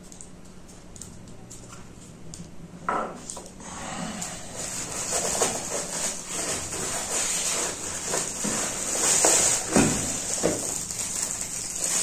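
Rustling and crinkling of a cardboard box and plastic wrap, with scattered light knocks, as a hairdryer is pulled out of its packaging. It starts with a knock about three seconds in and gets louder from there.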